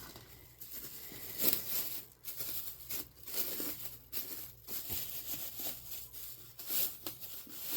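Packaging rustling and crinkling in irregular handfuls as a reborn doll kit is unwrapped by hand.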